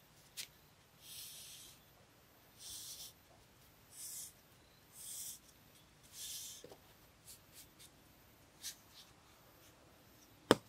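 A hand trowel scraping across the clay-plastered top of a table in five short strokes, followed by a few light clicks and one sharp knock near the end.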